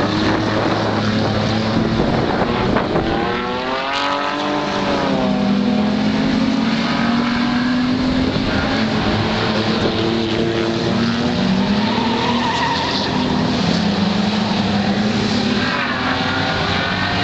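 Super banger race cars' engines running hard around the track, revving up and falling away as they lap.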